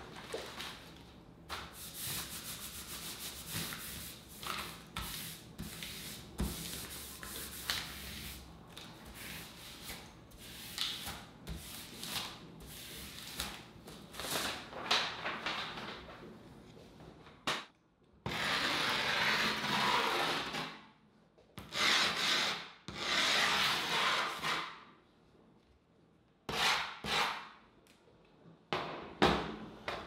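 Mob griptape being rubbed and pressed onto a skateboard deck by hand: a run of short gritty rubbing strokes. About two-thirds of the way through come a few longer, louder scraping strokes, the grip being scraped along the deck's edge with a tool to score the outline for trimming.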